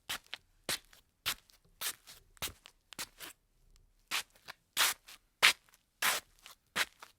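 Slippers shuffling on a tile floor: a steady run of short scuffing steps, about two a second, with a brief gap near the middle and louder scuffs in the second half.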